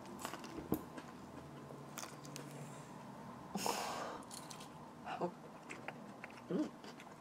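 Someone eating a bowl of seaweed soup noodles: chewing, with scattered clicks of utensils and a short, louder burst of noise a little past halfway.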